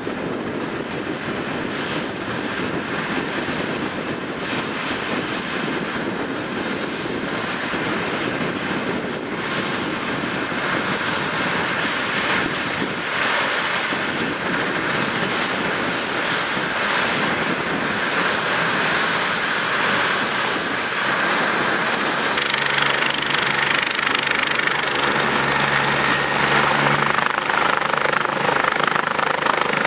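Air ambulance helicopter, a twin-turbine BK 117, running on the ground with its rotors turning. A high turbine whine rises steeply partway through and the sound grows louder toward the end, as the helicopter runs up before lift-off.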